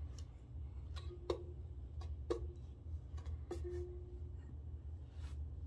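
Small wooden ukulele knocked and plucked by a crawling baby's hands: scattered taps on the body, several followed by a short ringing twang of the same low string note, the longest a little past halfway. A steady low hum runs underneath.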